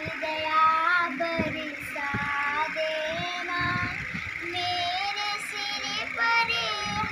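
A young girl singing a devotional song (bhakti geet), holding notes and sliding between them.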